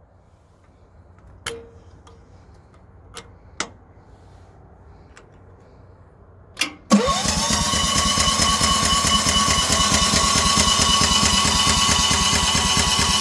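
A few sharp clicks over a quiet hum, then about seven seconds in an engine fires at once and keeps running steadily with a fast, even beat. A whine rises just after it catches and then holds steady.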